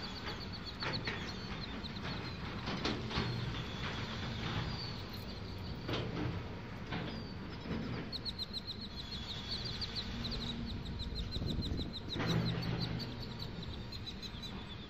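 Construction site ambience: a steady low machinery rumble with scattered sharp metal knocks and clanks. A bird's rapid high chirping trills come and go over it, longest in the second half.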